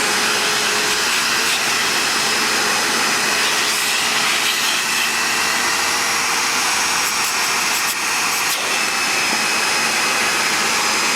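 Vax HF1400 New Wave carpet washer-vacuum's motor running steadily, a continuous whine with a few steady tones, while its suction draws on a hand held over the intake; the owner judges the suction pretty poor.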